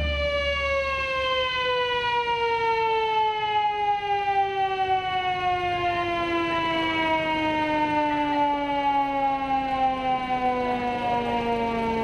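A siren winding down, its pitch falling slowly and smoothly in one long glide. Background music with a low beat fades out about a second in.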